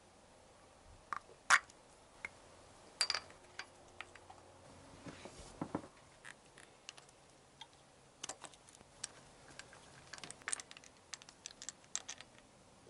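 Scattered light clicks and knocks of hand tools on the cylinder head of a Yamaha XJ900S engine: a spark plug cap is pulled off and a plug socket is fitted and turned to unscrew the spark plug.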